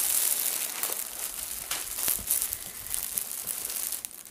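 Rustling of a blouse and its plastic wrapping being handled, growing quieter near the end.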